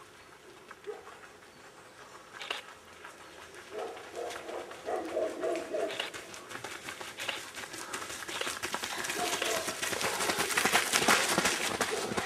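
Footsteps of a group of runners on a gravel track, growing louder as they approach, with the loudest stretch near the end. A few short mid-pitched calls sound about four to six seconds in.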